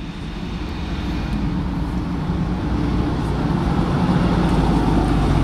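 Diesel engine of a Scania L94UB single-deck bus, a nine-litre five-cylinder, running as the bus approaches, growing steadily louder as it draws close.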